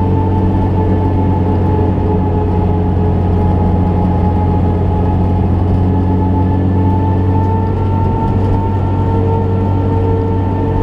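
Ford Fiesta rally car's engine running at a steady cruise, with road and tyre noise, heard from inside the stripped, roll-caged cabin. The engine note holds an even pitch throughout.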